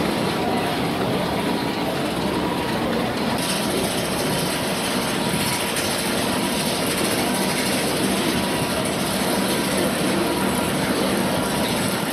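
Steel roller coaster machinery running: a steady mechanical rumble and rattle from the lift chain and track, which gets brighter about three seconds in.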